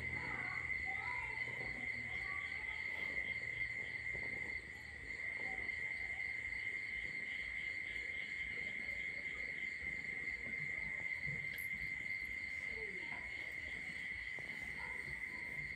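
Faint insect chorus, crickets trilling: a steady high-pitched trill with softer pulsing chirps above it.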